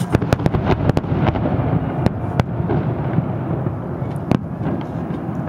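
Aerial fireworks shells bursting: a rapid string of bangs and crackles through the first second or so, then scattered single bangs over a steady rumble.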